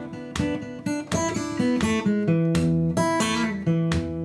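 Background music: acoustic guitar, plucked and strummed notes.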